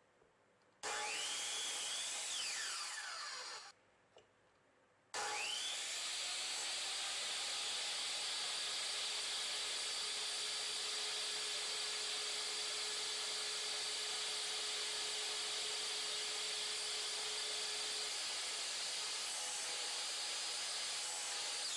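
Slide compound miter saw starting about a second in with a rising whine, running for a few seconds and spinning down. After a short pause it starts again and runs steadily while its blade cuts through a wooden block, beginning to spin down at the very end.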